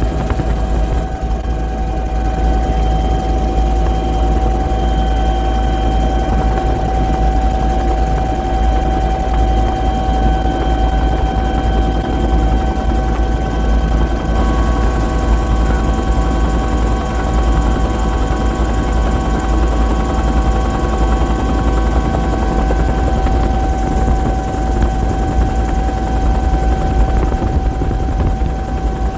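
Bell 212 helicopter running steadily: a constant turbine whine over a heavy low rumble, with no change in pitch or level.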